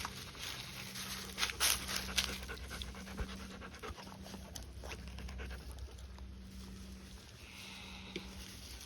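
A dog panting, with scattered sharp clicks and crunches, the loudest cluster about two seconds in.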